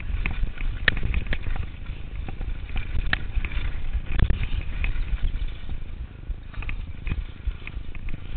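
Turner DHR downhill mountain bike clattering at speed over rough dirt and rock, with irregular sharp knocks and rattles from the bike and tyres. Wind rumbles steadily on the chest-mounted camera's microphone.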